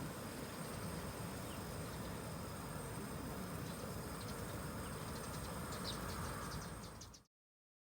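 Campsite ambience: insects trilling steadily at a high pitch over a low outdoor rumble, with a few faint clicks near the end. It fades out quickly to silence about seven seconds in.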